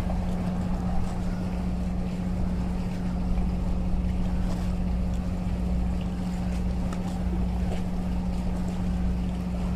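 A motor humming steadily at one constant pitch, with a low rumble beneath it.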